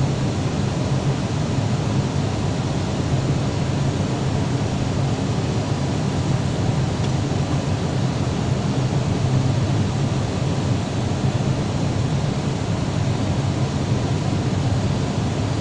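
Steady cabin noise of an Airbus airliner on approach: a deep, even rush of airflow and engine noise heard from inside the cabin.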